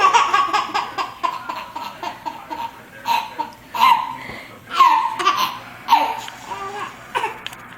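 Small child laughing: a quick run of giggles, then separate loud bursts of laughter about a second apart.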